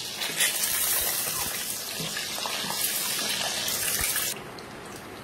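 Peeled hard-boiled eggs frying in hot oil in an aluminium pan, a steady sizzle. About four seconds in it drops sharply to a quieter sizzle.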